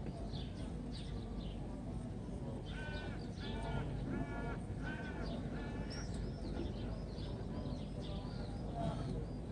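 A crow cawing about five times in quick succession a few seconds in, with smaller birds chirping higher before and after, over a low murmur of praying voices.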